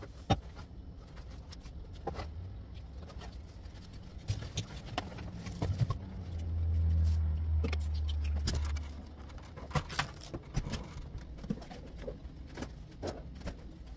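Handheld camera handling noise: scattered clicks and knocks, with a low rumble for about three seconds midway as the camera is picked up and carried, followed by a run of footsteps.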